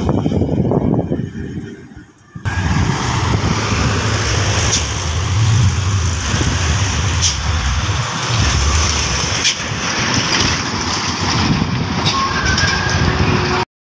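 Heavy diesel vehicles passing on a highway: a bus and a cargo truck, with a steady low engine rumble and tyre noise. The sound drops away about two seconds in, picks up again abruptly, and cuts off suddenly near the end.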